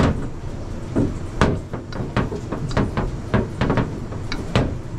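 Rolling pin knocking and clacking against a stainless steel worktop as dough balls are rolled out flat: an irregular run of sharp knocks, a few a second, over a steady low background hum.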